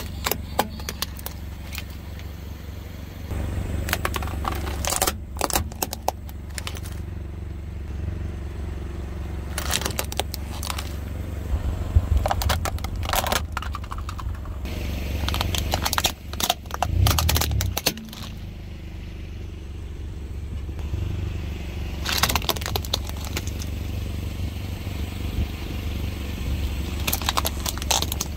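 A car tyre rolling slowly over hollow plastic toys, which crack and crunch in several clusters of sharp snaps. Under them runs the low, steady sound of the car's engine.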